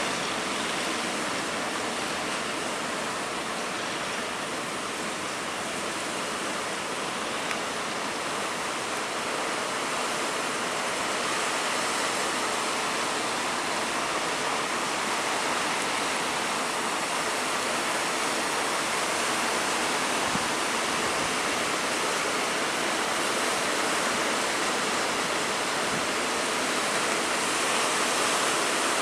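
Big waves in rough weather: a steady, unbroken rush of surf and churning water, a little louder near the end.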